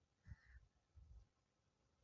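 Near silence in a pause between calls, with a few faint low thumps.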